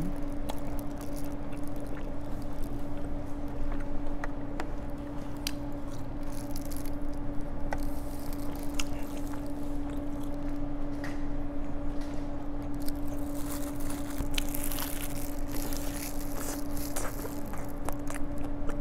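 Close-miked chewing of sauce-coated Korean fried chicken (yangnyeom chicken): wet clicks, squishes and light crunches scattered throughout, over a steady low hum.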